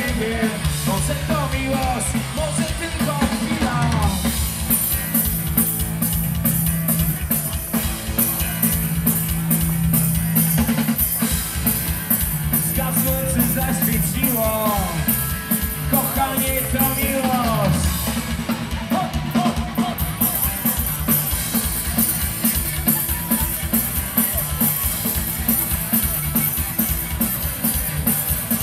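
Live punk rock band playing over a PA system: a fast, steady drum kit with bass and guitars, and a sung vocal line at the start and again about halfway through.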